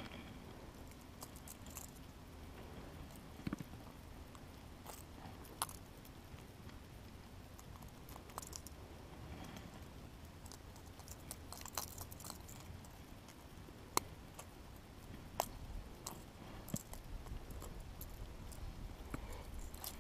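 Faint, scattered clicks and light rattling: metal fishing pliers working a crankbait's treble hooks free from a smallmouth bass's mouth, with a few sharper clicks among soft handling noise.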